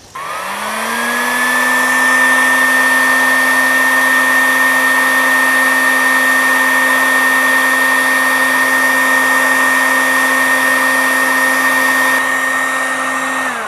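Electric heat gun running, its fan spinning up to a steady whine over a rushing blow of hot air while shrinking heat-shrink tubing over a wire splice. Near the end it is switched off and the whine falls away.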